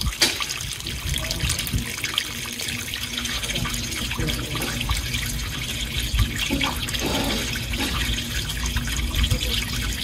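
Water gushing steadily out of an air-conditioner condensate drain pipe and splashing onto gravel. The line is being flushed with pressurized water from inside to clear the white 'dirty sock' residue clogging it.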